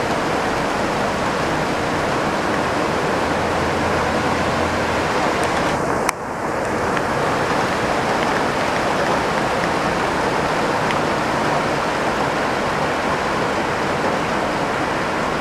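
Heavy downpour: a steady, loud hiss of rain falling, with one sharp click about six seconds in.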